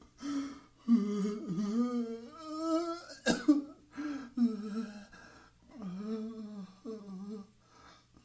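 A person groaning in long, wavering moans, with a sharp retching cough about three seconds in: the sounds of someone throwing up.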